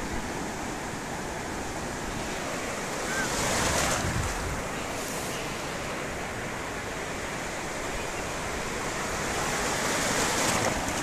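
Sea surf washing up a sandy beach in a steady hiss, swelling louder twice as waves break and rush in, about four seconds in and again near the end. Wind rumbles on the microphone underneath.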